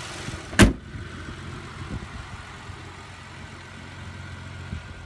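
Hood of a Porsche Macan Turbo pushed down and slamming shut with one sharp bang about half a second in. Its 3.6-litre twin-turbo V6 keeps idling underneath as a low steady rumble.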